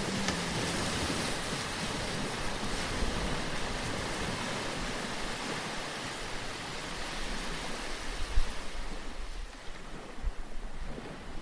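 Sea surf washing in, a steady rush of breaking waves that grows quieter over the last couple of seconds.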